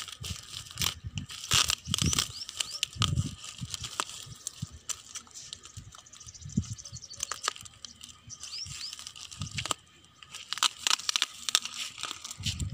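Scissors snipping and cutting through a parcel's wrapping and tape, with irregular tearing, crinkling and rustling of the packing material.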